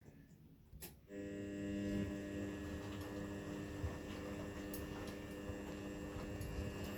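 Continental Edison washing machine's motor starting up after a click about a second in, then humming steadily as it turns the drum slowly during a 60 °C wash cycle.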